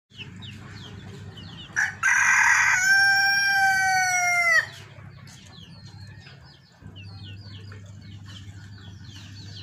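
Red junglefowl rooster crowing once, about two seconds in: a short rough opening, then a long held note that bends down and breaks off abruptly. Faint high chirps continue underneath.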